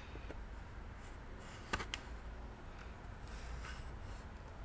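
Faint scraping of a plastic pry tool working under the edge of a laptop's LCD panel, with a couple of sharp plastic clicks about two seconds in as the panel is prised from the lid.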